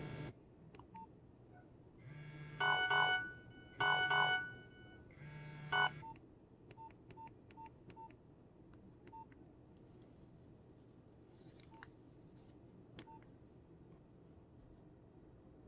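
Nokia 1112 mobile phone sounding three short bursts of electronic tones, each under about a second and a half, followed by a run of faint short beeps with light key clicks, as its keys are pressed.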